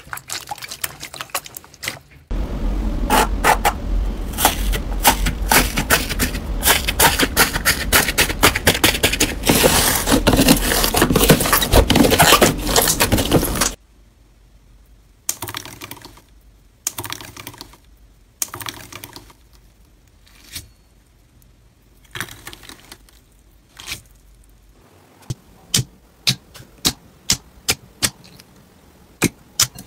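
Slime being squeezed and pressed by hand in a bowl, making dense, loud crackling and squelching for about ten seconds. After that the crackles thin out: slime under gold foil crinkles as it is pressed with a metal tool, and near the end separate sharp pops come as fingers poke red slime.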